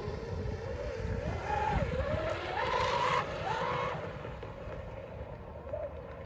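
Brushless electric RC speedboat's motor whining at speed, its pitch rising and falling with the throttle and loudest around three seconds in. Wind rumbles on the microphone underneath.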